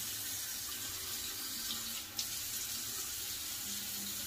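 Bathroom sink tap running steadily, water pouring into the basin.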